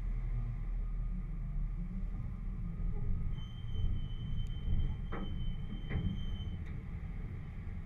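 Jeep engine running at low speed while crawling along a dirt trail, a steady low rumble. A thin high tone holds for about three seconds in the middle, and two knocks come about a second apart near its end.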